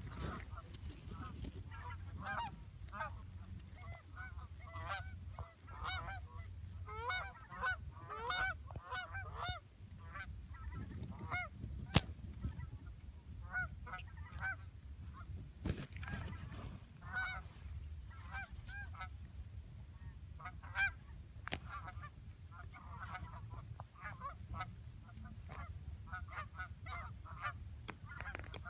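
Canada geese honking, many overlapping calls from an incoming flock, with a couple of sharp clicks, the loudest about twelve seconds in and another near twenty-one seconds, over a steady low rumble.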